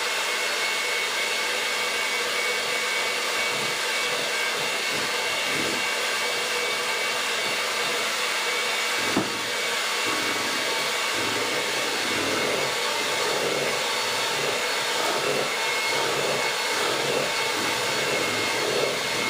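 Electric hand mixer running on low, a steady motor whine, its beaters mixing sugar-cookie dough in a bowl as flour is added. One brief knock about halfway through.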